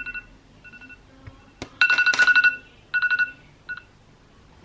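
Electronic alarm beeping in rapid bursts of high, steady-pitched beeps with short pauses between them, loudest about two seconds in. There is a single sharp click between bursts.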